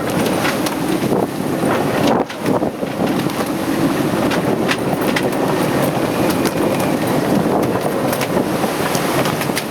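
Strong wind of over 30 knots buffeting the microphone aboard a sailing yacht under sail: a steady loud rush, with many short knocks and rattles and a brief lull about two seconds in.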